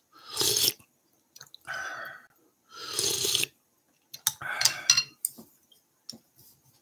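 A person slurping ramen noodles from a bowl: four noisy slurps of about half a second each, with a few faint clicks between them.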